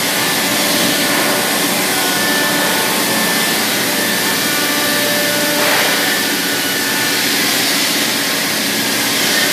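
Industrial robot's high-speed trimming spindle running as it cuts a moulded plastic truck part: a steady loud rushing noise with faint steady whining tones over it.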